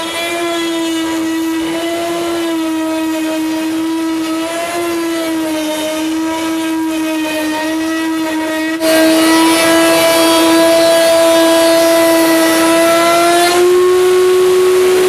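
Router in a router table running with a steady high whine, its pitch wavering slightly as the bit cuts a groove along the edge of a wooden frame rail, with a dust collector drawing through the hood over the bit. About nine seconds in the sound turns suddenly louder and brighter, and near the end the pitch steps up a little.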